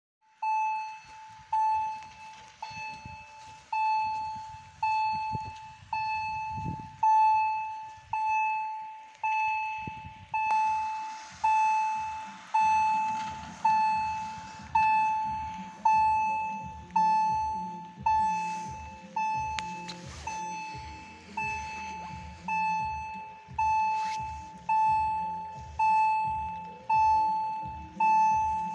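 Level-crossing warning bell ringing about once a second, each strike a clear high tone that dies away, the signal that a train is approaching and the barriers are down. From about twelve seconds in, a low, fast-pulsing rumble joins underneath.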